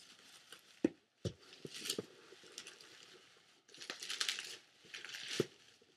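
Clear plastic wrapping crinkling as a resin ball-jointed doll body is unwrapped, with a few light knocks and clicks from the hard resin parts.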